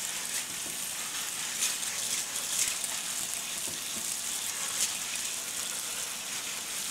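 Water running steadily from a kitchen faucet into the sink.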